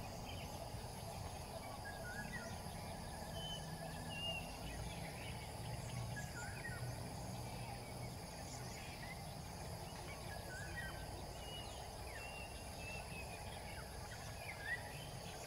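Birds giving scattered short chirps and whistles, over a steady high insect drone.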